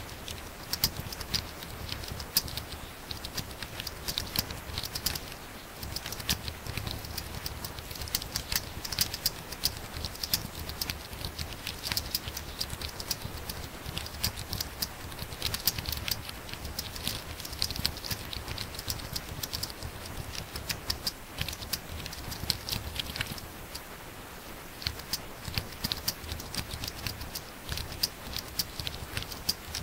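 Fast typing on a laptop keyboard: a dense, rapid patter of key clicks that eases for a moment about three quarters of the way through.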